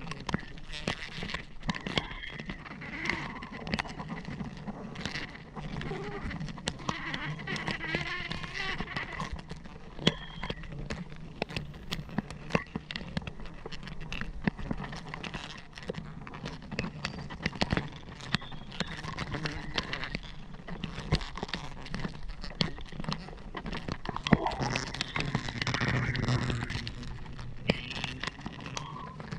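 Leaves and twigs rustling and snapping right against the microphone, with frequent sharp clicks and knocks, as giant honey bee comb is cut from the branch into a plastic bucket. A steady low hum runs underneath, from the swarm of bees around the nest.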